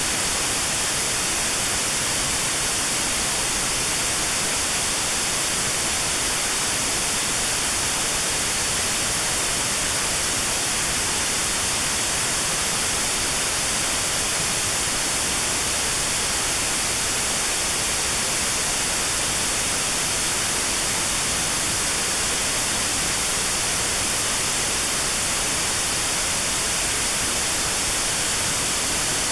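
Steady white noise, an even hiss across all pitches, with a narrow notch cut out around 4 kHz. This is notched sound therapy for tinnitus pitched at 4 kHz.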